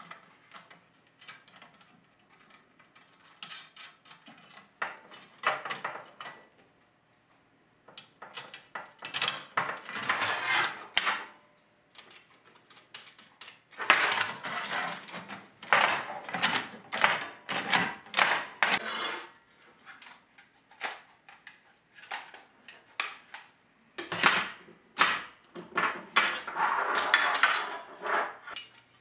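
Thin 4130 steel armour plates clinking, rattling and scraping against each other and the workbench as they are handled and fitted together. The clatter comes in irregular spells with short quiet gaps.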